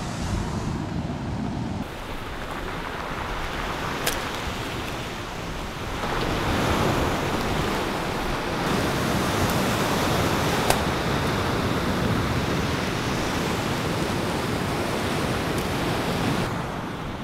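Surf washing onto a rocky cobble beach, a steady rushing noise that swells louder about six seconds in, with a couple of sharp clicks on top.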